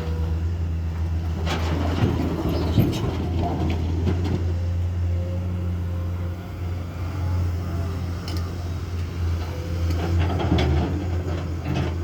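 Komatsu excavator's diesel engine running steadily under load, with scattered clanks and knocks, a cluster about two to three seconds in and more near the end.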